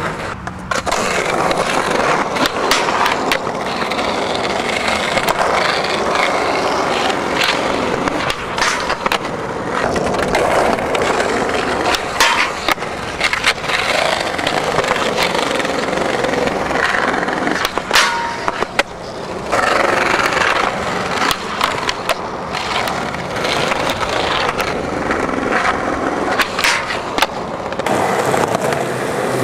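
Skateboard wheels rolling over rough asphalt and concrete, with a steady coarse rumble. Sharp clacks come throughout as the board is popped and lands.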